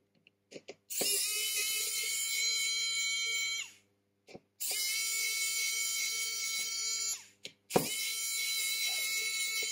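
Pen-style electric precision screwdriver whirring in three runs of about three seconds each, driving the small screws of a phone's frame; its pitch drops briefly as the motor stops after each run. Light clicks come between the runs.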